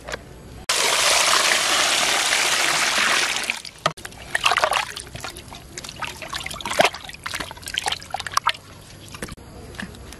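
Water poured steadily into a metal pot for about three seconds, then irregular splashing and rubbing as hands scrub a raw pig's head in the water.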